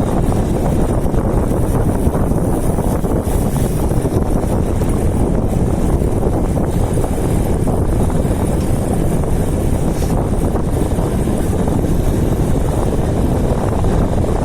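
Steady wind buffeting the microphone of a camera on a road bike riding at speed in strong wind.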